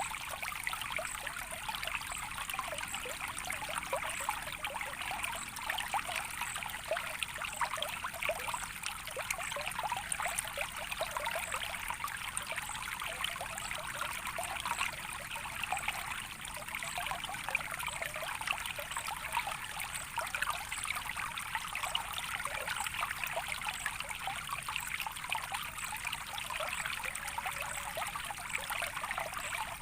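Softly flowing water trickling steadily, with a dense patter of tiny splashes and gurgles and no pauses.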